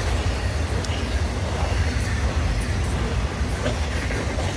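Florida East Coast Railway freight train rolling past, a steady low rumble of railcars with scattered light clicks from the wheels.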